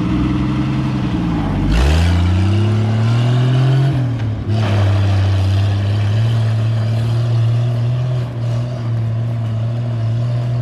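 Jeep CJ5's engine revving up as it pulls away on gravel, the revs climbing for about two seconds, then a break about four seconds in, like a gear change, after which the engine settles into a steady drone.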